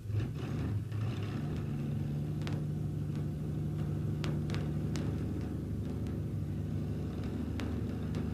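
An engine idling, a steady low rumble, with a few sharp clicks scattered through it.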